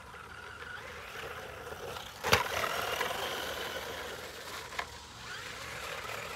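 Small 1/12-scale RC truck's twin brushed electric motors whining as it drives over loose dirt, with tyre crunch. A sharp knock about two seconds in and a smaller one near five seconds.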